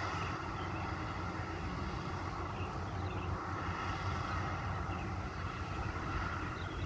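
Maxxi Bimo 102 rice combine harvester running steadily under load, its engine and threshing machinery working through the paddy.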